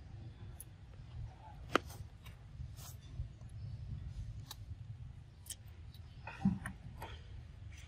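A monkey biting and chewing a ripe mango: scattered wet clicks and smacks, roughly one a second, over a low rumble.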